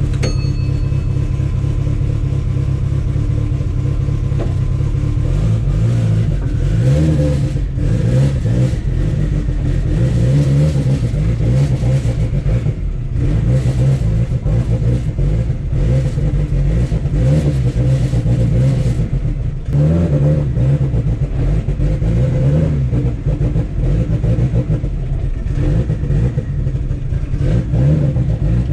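Turbocharged Mitsubishi 4G63 four-cylinder engine running, steady at first, then rising and falling in pitch again and again from about six seconds in as it is revved.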